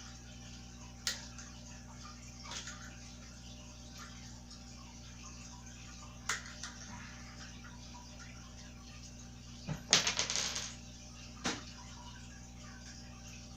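Toddler bike parts being handled while the front wheel is fitted: a few sharp isolated clicks and knocks, and a brief rattling clatter about ten seconds in, over a steady low hum.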